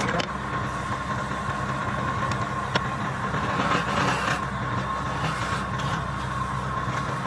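Woodturning lathe motor running steadily with a low hum and a steady whine, with one sharp click about three seconds in.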